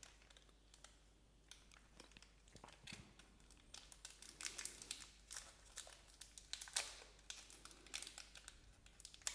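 Faint crinkling and crackling of the candy pack's wrapper as it is handled and turned over, sparse at first and busier from about four seconds in.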